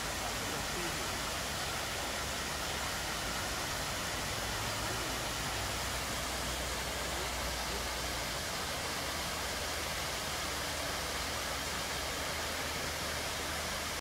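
Rocky cascade waterfall: water spilling down several tiers of stone into a pool, making a steady, even rush.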